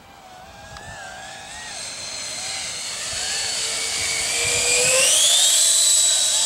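Twin 72 mm electric ducted fans of a foam RC Boeing 767 model jet whining, growing steadily louder as the plane flies in. About four seconds in the whine climbs sharply in pitch, then holds high.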